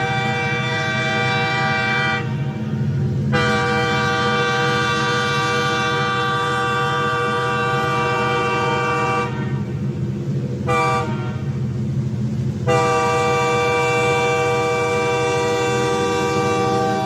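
Train horn sounding the long, long, short, long pattern of a grade-crossing warning: a long blast ending about two seconds in, a longer one, a brief toot near the middle, then another long blast, over a steady low rumble from the train.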